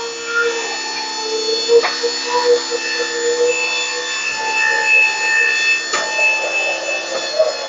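Powered drive of an AmeriDeck tilting truck-bed loader running under load as it lifts a strapped motorcycle up into a pickup bed. It makes a steady whine with metal rubbing and grinding, then cuts off at the end.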